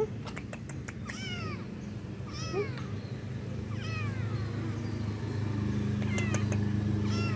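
Kitten meowing about five times in short, high-pitched calls, each rising then falling in pitch, begging for food. A low steady hum runs underneath in the second half.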